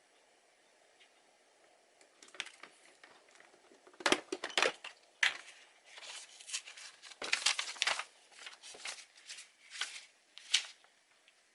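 Crinkling and tearing of packaging, handled in irregular rustling bursts that start about two seconds in, with louder crackles near the middle and near the end.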